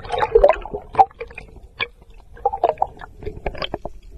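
Underwater noise heard through a submerged camera: irregular clicks and crackles with short bubbly gurgles, as the speared barracuda is handled close to the camera.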